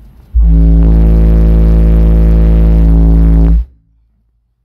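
Six Soundstream XXX 15-inch subwoofers, driven by a Soundstream XXX 15000D amplifier at about 14,000 watts, blasting a 55 Hz test tone as an SPL burp that meters 158 dB in the kick area. It comes in suddenly as a steady, heavily distorted tone with many overtones, holds for about three seconds, and cuts off abruptly.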